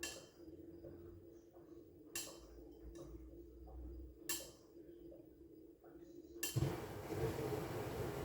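Washing machine running with a steady low hum, broken by three sharp clinks about two seconds apart. About six and a half seconds in, a louder rushing noise sets in and continues.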